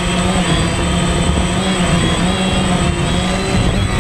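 DJI Phantom quadcopter's motors and propellers whining loud and steady, heard up close from the GoPro mounted on the drone; the tones waver a little in pitch as the motors adjust in flight.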